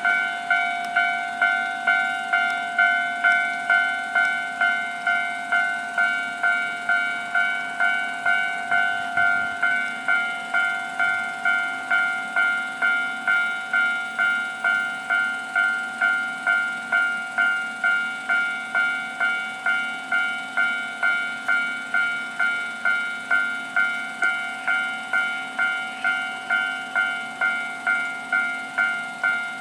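Japanese railway level-crossing warning bell ringing, an electronic ding repeating steadily at about one and a half strikes a second: the crossing is active for an approaching train.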